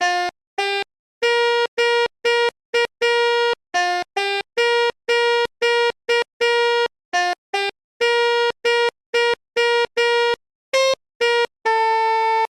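Synthesized pianika (melodica) and basuri bus-horn tones from a keyboard app, tapped out as a telolet-style tune. It is a string of about two dozen short notes, mostly on one pitch with a few lower and higher ones, each cutting off sharply, and it ends on a longer held note.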